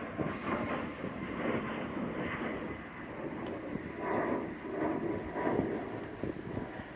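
Steady outdoor airport rumble of distant jet aircraft, with wind on the microphone and a few soft swells in level.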